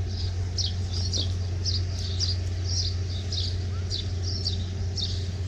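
A small bird chirping over and over, short high chirps about twice a second, with a steady low hum underneath.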